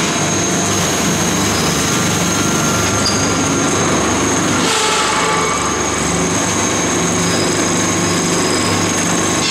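Egg tray forming machine running steadily with a low hum and a high, steady whine, and a short burst of hiss about five seconds in.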